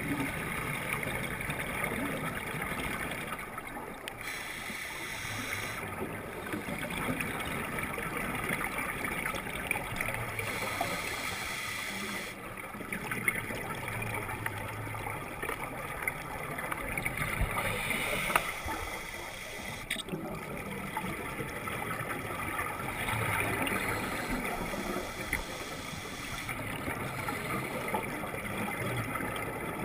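Scuba breathing underwater, muffled through a waterproof camera housing: slow breaths through a regulator in turn with gurgling bursts of exhaled bubbles, about one breath every six seconds.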